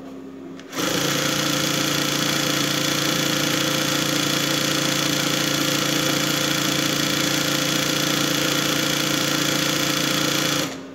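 Bernina 217 industrial sewing machine running at a steady speed for about ten seconds. It starts abruptly about a second in and stops near the end. Before and after the run a quieter steady motor hum is heard.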